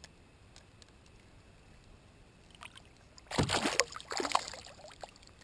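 Water splashing right beside a kayak as a hooked fish thrashes at the surface and is hauled out. The splashes come in a cluster starting about three seconds in and last about a second and a half.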